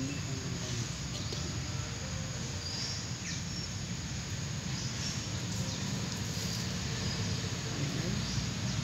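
Outdoor ambience: a steady low hum and background hiss, with faint short high chirps every second or so.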